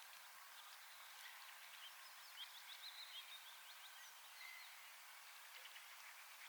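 Faint evening birdsong: several songbirds giving quick chirps and short trills over a steady soft hiss of outdoor ambience, busiest a couple of seconds in.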